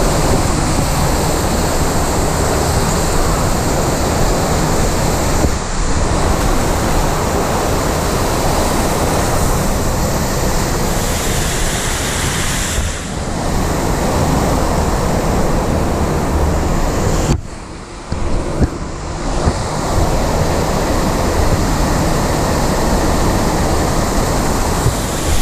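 Steady, loud rush of water pumped as a thin sheet up the ride surface of a WaveOz 360 sheet-wave surf machine, heard close to the water. The rush drops away briefly a few times, most deeply about 17 seconds in.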